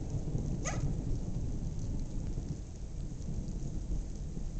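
Thunderstorm: steady rain with a low rumble of thunder. A short, high rising chirp sounds about half a second in.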